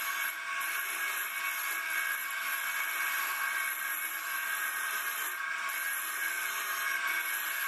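Homemade wood copy lathe running, its cutting head shaving the spinning wooden workpiece: a steady machine whine over the hiss of wood being cut.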